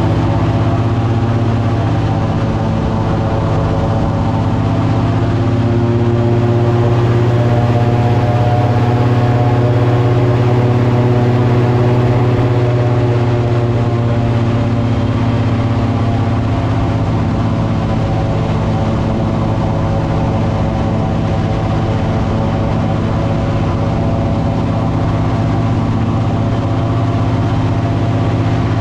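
An engine running steadily at a constant speed: a loud low hum with many even overtones. It is slightly louder from about six to twelve seconds in.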